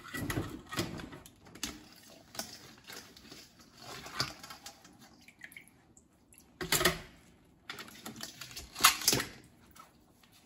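Metal tongs clacking against a stainless steel bowl and against crab and lobster shells, with water dripping and sloshing, as live crabs and lobsters are lifted out of the bowl into a stockpot. The knocks come irregularly, the loudest about a second in, near seven seconds and around nine seconds.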